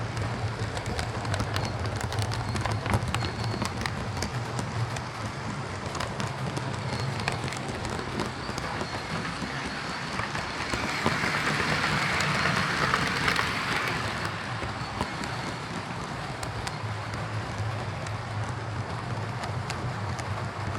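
Hornby Class 43 HST OO gauge model train running on its track, a steady motor hum under rattling, clicking wheel noise. It grows louder about halfway through, as if passing close by, then drops back a few seconds later.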